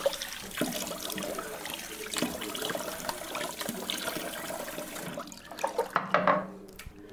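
Bathroom sink tap running while water is splashed onto the face by hand to re-wet the skin between shaving passes. There are louder splashes about five and a half seconds in, and the running water stops shortly before the end.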